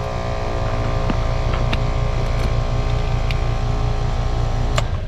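Two-stage Trane outdoor unit's compressor running with a steady hum, then cutting out with a click near the end: the unit short cycling, which the technician suspects is a low-pressure switch tripping.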